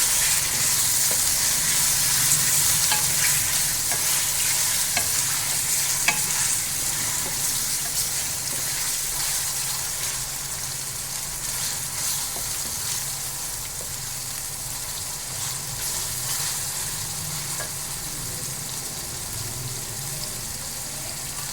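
Chicken pieces sizzling in hot oil with fried onions as they are browned and stirred, with occasional clicks and scrapes of the spoon against the pot. The sizzle grows quieter from about halfway through.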